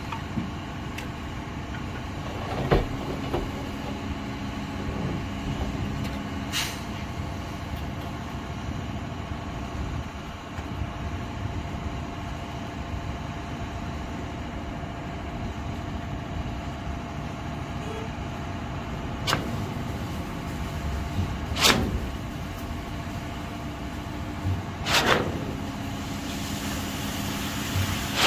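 Heavy truck engine running steadily on a concrete pour, with about five sharp knocks or clanks scattered through it.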